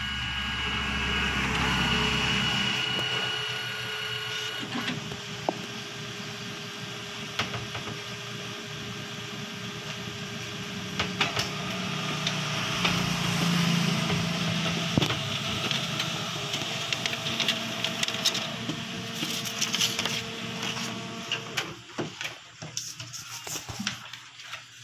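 Canon iR 2206 photocopier running a copy job: a steady whir with a high tone for the first few seconds, then steady motor hum with scattered clicks, winding down about 22 seconds in.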